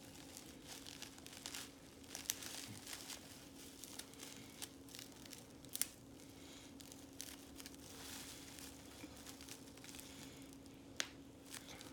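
Plastic bubble wrap being handled and crinkled, with scattered small sharp pops as the bubbles are squeezed.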